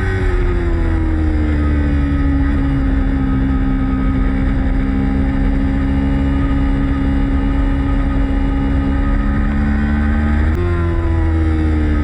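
Motorcycle engine running hard at steady revs over a heavy low rumble. The pitch eases down over the first few seconds and holds, then jumps up sharply about ten and a half seconds in and eases down again.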